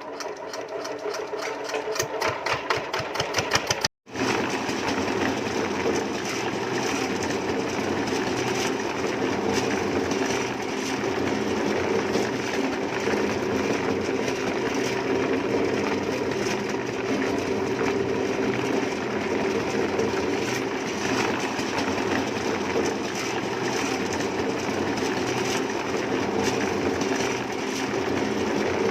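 Fast, even mechanical clicking, then after a sudden break a steady machine drone that runs on evenly.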